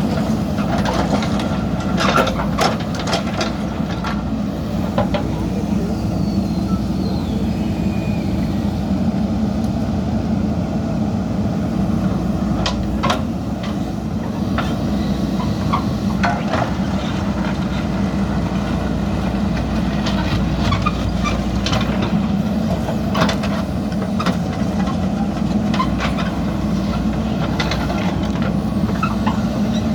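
JCB backhoe loader's diesel engine running steadily while working, with scattered sharp knocks and clanks throughout.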